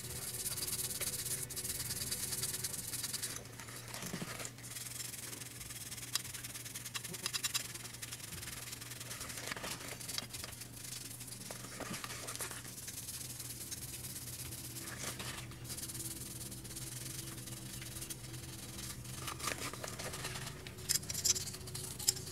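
Small bristle brush scrubbing a small painted part in soapy water: wet, scratchy bristle strokes that come and go, with a few sharper clicks near the end.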